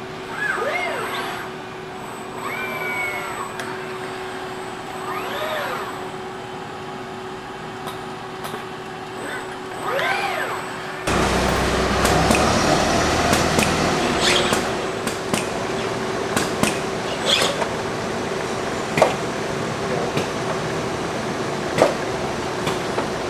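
Industrial robot's servo motors giving four rising-and-falling whines as the arm moves, over a steady machine hum. About halfway through, the sound changes abruptly to a louder, noisier assembly line with repeated sharp clicks and clanks of tooling.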